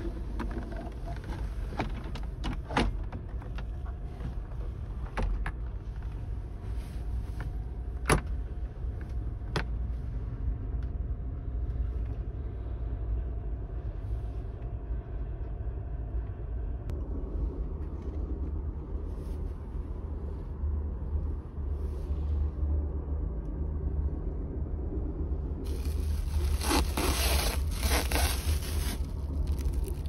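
Interior of an Amtrak Superliner sleeping car on the move: a steady low rumble of the running train, with a few sharp clicks and knocks from the car's fittings. Near the end there is a louder rustling hiss lasting a few seconds.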